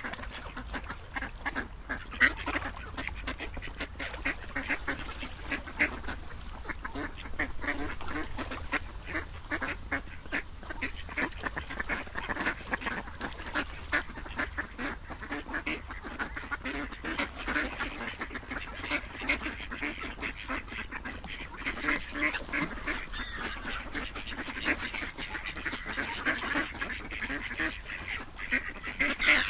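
A flock of ducks quacking without pause, many short calls overlapping each other.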